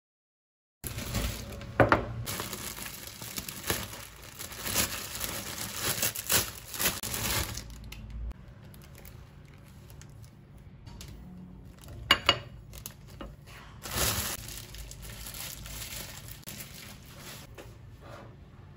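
Plastic bread bag crinkling and rustling as a slice of sliced bread is taken out, with a few sharp knocks.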